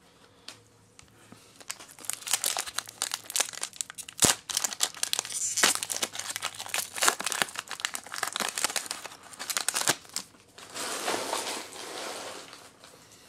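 Foil Pokémon booster pack wrapper crinkling and crackling as it is torn open and handled, a dense run of crackles with one sharp snap in the middle. Near the end a softer, smoother rustle follows as the cards are slid out of the pack.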